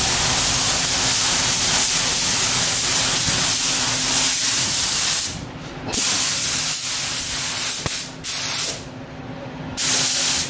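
Compressed air hissing hard from a hand-held air gun on a shop air hose: one long blast of about five seconds, then shorter blasts with brief pauses between them. This is the car body being blown off and sprayed during a paint job.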